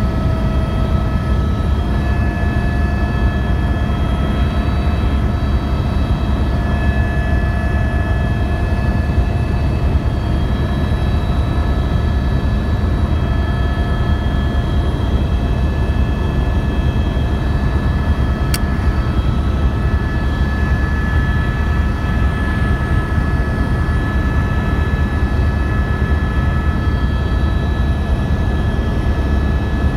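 Helicopter in flight, heard from aboard: a steady loud rumble of rotor and engine with a steady high whine of several tones over it. One sharp click a little past halfway.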